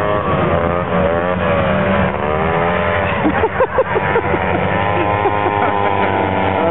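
Vintage two-stroke snowmobile engines racing, their pitch rising and falling as the sleds speed up and slow down, with a quick series of short revs about three and a half seconds in. A steady low hum runs underneath.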